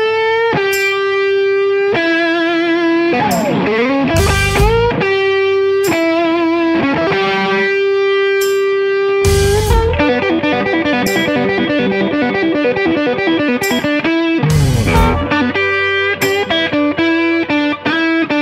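Electric blues band playing an instrumental passage, led by electric guitar. The guitar slides into long held notes with vibrato, then switches to a run of quick repeated notes about ten seconds in, over bass and drums with cymbals.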